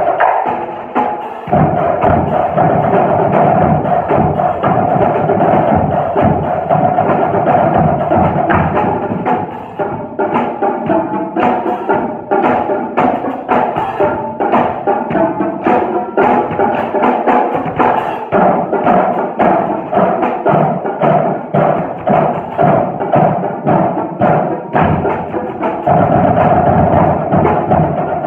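Percussion ensemble playing: mallet keyboard instruments sounding pitched notes over a drum kit beat. About ten seconds in the texture thins to sparser, sharper strokes, and it fills out again near the end.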